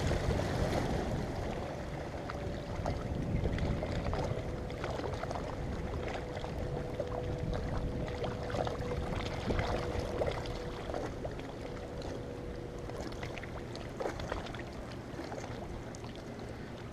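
Wind rumbling on an uncovered action-camera microphone, with the faint steady drone of a distant motorboat through most of the clip and scattered light clicks from a spinning fishing reel being cranked in.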